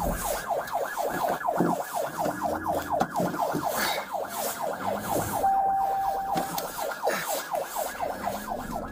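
Police car siren in a rapid yelp: fast falling sweeps, about six a second, running without a break. A short steady beep sounds over it a little after five seconds in.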